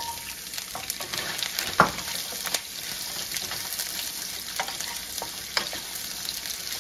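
Julienned carrots sizzling as they hit very hot oil in a frying pan and are stirred with a wooden spoon: a steady frying hiss with scattered sharp clicks.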